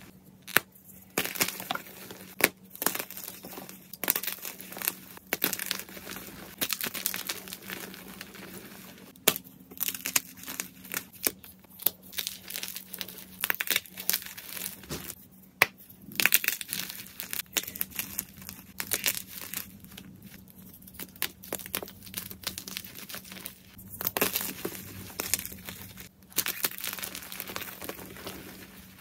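Hands crushing and crumbling blocks of white gym chalk (magnesium carbonate) in a pile of chalk powder, making crisp crunches and crackles that come in irregular clusters.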